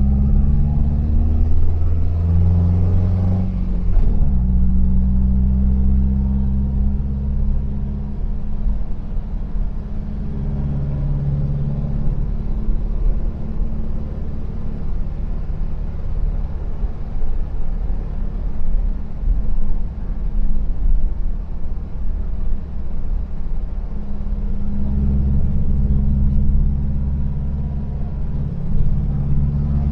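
Freshly rebuilt air-cooled flat-four engine of a 1973 VW T2 Devon camper van running on the move, a steady low engine note with road noise. The note shifts abruptly about four seconds in and rises again near the end.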